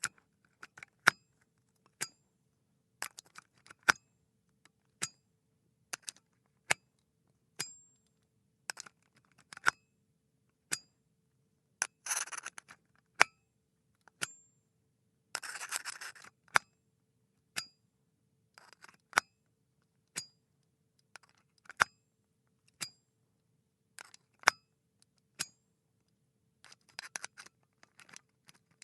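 USB cable plug being pushed into and pulled out of a port over and over: a string of sharp clicks, about one a second, with a few short scrapes as the metal plug slides in the socket.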